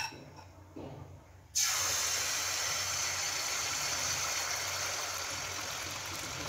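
Semolina batter poured into hot oil in a pan: about one and a half seconds in, a sudden loud sizzle starts and keeps going steadily as the pitha fries, easing off only slightly.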